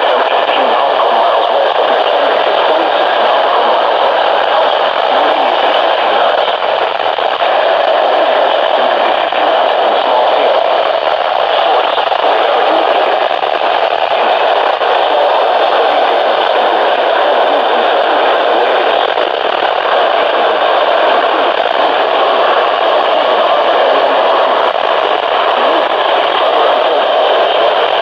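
Steady radio static: a receiver hissing with no signal or voice coming through.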